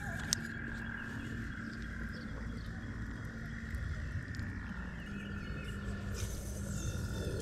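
Frogs trilling: one long, steady high trill breaks off about two seconds in, and another, slightly lower, starts about five seconds in. There is one sharp click about a third of a second in.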